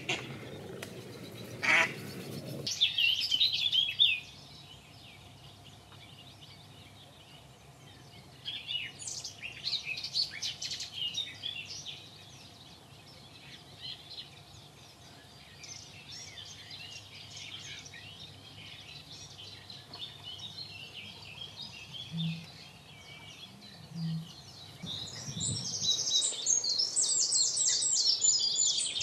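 Small songbirds singing and chirping in intermittent bursts of quick, high notes, busiest near the end. A couple of sharp knocks sound in the first two seconds.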